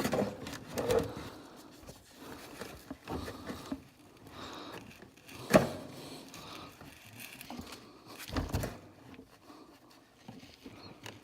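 Scattered light clicks and taps of hand work on the transfer case drain plug of a Honda 300 Fourtrax ATV, as the oil is let out. There is a sharper click about halfway through and a dull knock a few seconds later.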